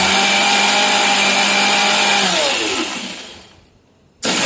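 Electric mixer grinder with a steel jar grinding boiled, peeled tomatoes into a purée with no water added. The motor runs steadily, is switched off a little past two seconds in and spins down with falling pitch, then starts again near the end.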